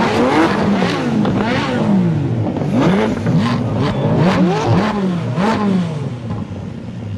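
Supercar engines, a McLaren 675LT's twin-turbo V8 and a Lamborghini Aventador's V12, revved hard at standstill in quick, overlapping blips, the pitch climbing and dropping about once a second; the revving dies away near the end.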